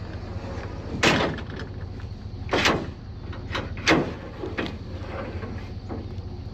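Three loud thuds or bangs, about a second and a half apart, with a few softer knocks between them, over a steady low hum.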